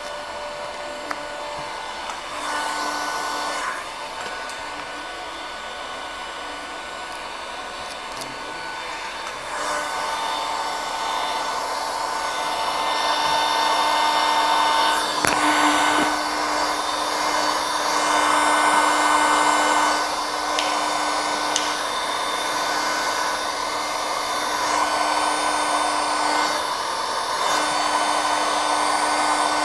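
Hand-held heat gun blowing with a steady hum and hiss, heating vinyl wrap film to soften it so it can be worked around the edges. It gets louder from about ten seconds in.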